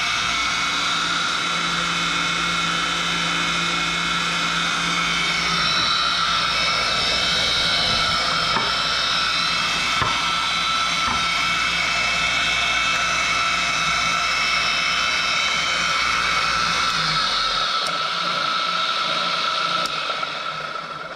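Woodworking power feeder running at its fast speed, a steady electric motor and gear whine with several high tones, its urethane feed wheels turning freely. A low hum under it drops out near the end.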